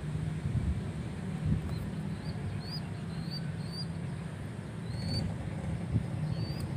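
Pigeon squab's begging calls: a run of short, high, squeaky peeps repeated irregularly from about two seconds in, the young bird pestering its parent for attention and food. A steady low rumble runs underneath.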